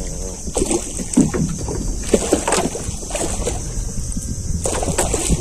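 Irregular knocks and handling noise in a small boat, with water sloshing against the hull, as an angler whose rod has just snapped hauls a hooked grouper up by the line. A steady high hiss runs underneath.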